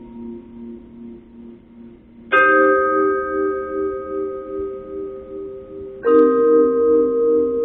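Struck metal bell-like percussion ringing. Two strikes, about two seconds in and again about six seconds in, each leave a long ring of several tones that waver slowly in loudness.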